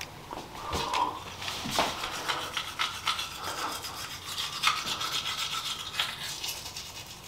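Electric toothbrush with a round brush head scrubbing teeth in uneven strokes.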